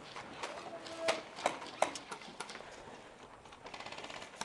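Airsoft guns firing: scattered sharp cracks, then a fast rattling run of shots near the end.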